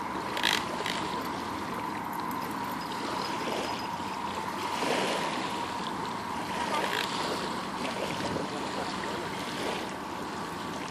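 Small waves lapping on a sandy shore under a steady rushing outdoor noise, with a faint steady hum and a single click about half a second in.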